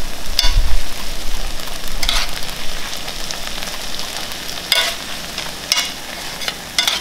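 Ground longaniza sausage meat with sofrito, peppers and garlic sizzling in a hot pan while a metal spoon stirs and breaks it up. The spoon scrapes the pan about five times over the steady frying hiss.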